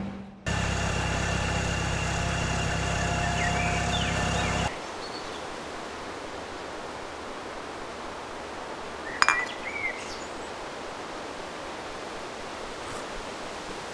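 A steady low hum, cut off abruptly a little over four seconds in, then steady outdoor background noise with a bird chirp about nine seconds in.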